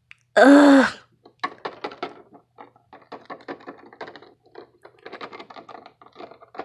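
A short, loud vocal sound near the start, then a rapid, irregular run of light clicks and taps as a small plastic toy animal figure is hopped and walked across a plastic toy-house floor.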